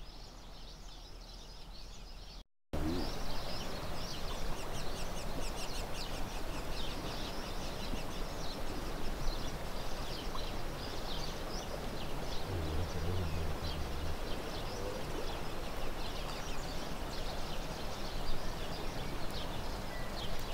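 Fast-flowing river water rushing steadily, with small birds chirping repeatedly over it. The sound cuts out briefly a couple of seconds in and comes back louder.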